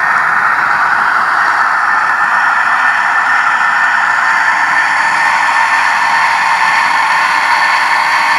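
Trix Ae 8/14 model electric locomotive running, its fitted sound decoder playing a steady electric-locomotive running noise with a faint hum.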